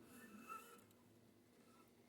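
Near silence: quiet room tone, with one faint brief sound about half a second in.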